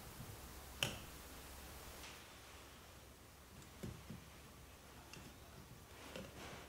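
One sharp snip about a second in as steel concave branch cutters bite through a stub on a maple bonsai trunk, followed by a few faint small clicks of a metal tool working among the branches.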